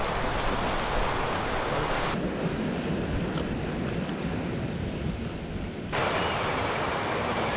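Ocean surf and wind on the microphone, a steady rushing noise, with the mix shifting abruptly about 2 seconds in and again about 6 seconds in.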